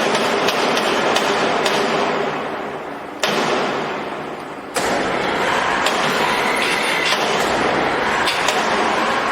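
Welding guns of a rebar cage welding machine crackling as they weld, with a steady sizzle dotted with sharp clicks. The sound starts abruptly again about three and about five seconds in, after fading slightly in between.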